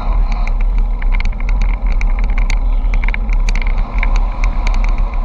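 Wind buffeting the microphone of a camera riding on a moving bicycle, a steady heavy rumble, with frequent irregular sharp clicks and rattles as the bike rolls over the road surface.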